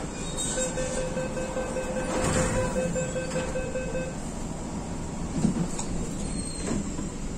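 MTR Tung Chung Line K-Train door-closing warning tone, a steady electronic tone lasting about three and a half seconds, followed by a couple of knocks as the sliding doors shut.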